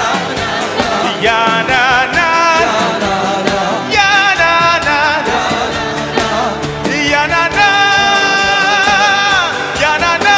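Live gospel worship music: a singer holding long, wavering notes with vibrato over a steady band accompaniment.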